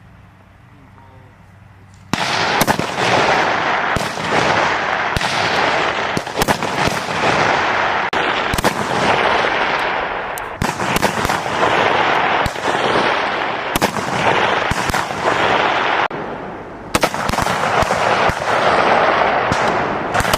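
Rapid, overlapping rifle fire from several M4 carbines on a firing line, starting suddenly about two seconds in. Many sharp shots run together with their echoes into a near-continuous crackle, easing briefly near the end before resuming.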